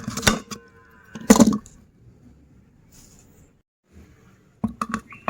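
Mini chocolate candies clattering and crunching in a meat grinder: a few sharp bursts of cracking and rattling, a quiet pause, then a quick run of sharp clicks near the end.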